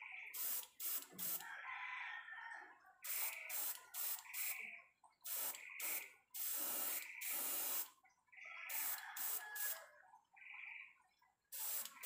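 Airbrush spraying paint in a series of short hissing bursts, with one longer spray lasting about a second just past the middle.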